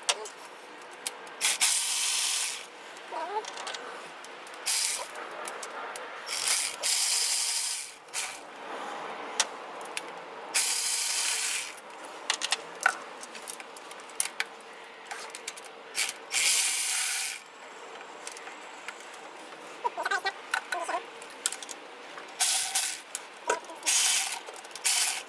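Repeated short hissing bursts, each about a second long, with tool clicks and rattles between them, from work under the hood of a 2002 Mazda Protege 5's engine bay.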